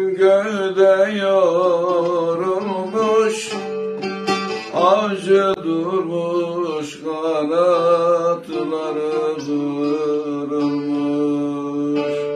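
A man sings a Turkish folk song (türkü) while playing a long-necked bağlama (saz). About nine and a half seconds in, the voice stops and the bağlama plays on alone with a steady, ringing drone.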